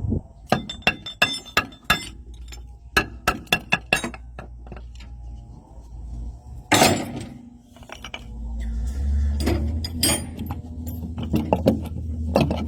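Sharp metallic clinks and taps, as of tools or metal parts being handled, coming in irregular runs, with one louder knock about seven seconds in. A steady low hum runs underneath.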